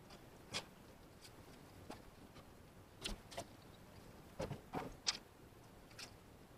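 A few faint, scattered clicks and knocks, about nine in all and unevenly spaced, the loudest about five seconds in.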